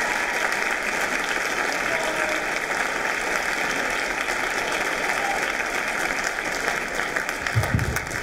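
Audience applauding in an auditorium, the clapping thinning slightly toward the end, with a low thump near the end.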